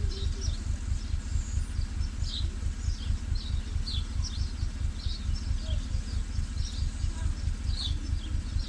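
A 2015 Chevrolet Tahoe's V8 idles with a steady, evenly pulsing low rumble, typical of its cylinder-6 misfire, which has been traced to a mechanical fault rather than an electrical one. Birds chirp on and off over it.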